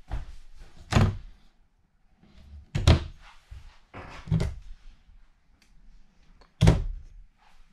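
Doors in a travel trailer being shut, four separate thuds spread across a few seconds.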